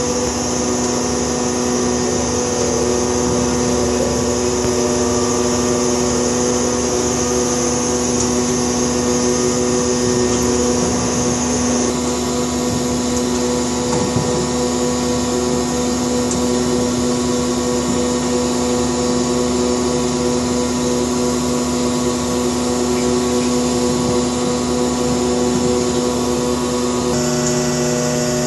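Ship's machinery droning steadily: a constant mechanical hum made of several steady tones over a hiss, changing slightly in tone about twelve seconds in and again near the end, as the hoist holds a benthic lander over the side.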